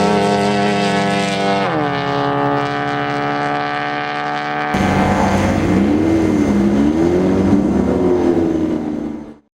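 Off-road race vehicle engine running at high revs, its pitch dropping as it goes past about two seconds in. After a sudden cut about halfway through, an engine revs up and down with a rushing noise, then fades out near the end.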